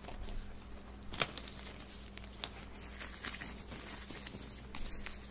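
Latex-gloved hand rubbing and crinkling right against a handheld recorder's microphone, with scattered soft clicks and snaps, a sharper one about a second in.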